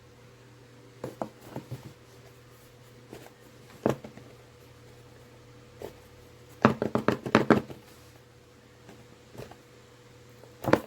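Hands working at a small cardboard-and-plastic earbud box, trying to get it open: scattered light taps and clicks, then a quick cluster of clicks and scraping about seven seconds in.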